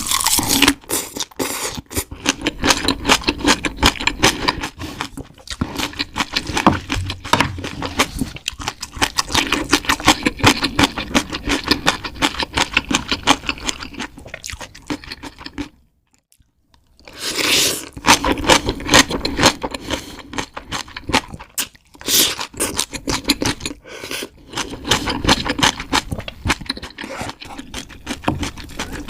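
Close-miked crunching and chewing of crisp food: a dense, rapid crackle that stops briefly about halfway through, then resumes with a loud crunch.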